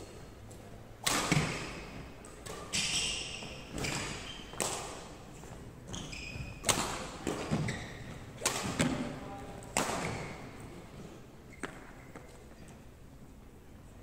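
Badminton rally: about ten sharp racket hits on the shuttlecock, roughly one a second, each ringing on in the big hall's echo; the hits stop a couple of seconds before the end.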